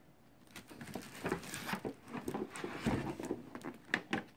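Cardboard shipping carton and a plastic-wrapped toy box being handled and lifted out: irregular rustling, scraping and crinkling, with a dull bump about three seconds in.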